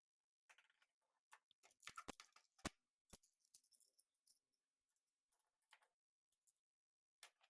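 A few sharp plastic clicks of magnetic building tiles snapping together: a quick cluster about two seconds in, the loudest click a moment later, another soon after and a faint one near the end, otherwise near silence.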